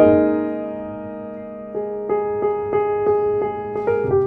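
Background piano music: a chord struck and left to ring, then a run of quick repeated notes, about three a second.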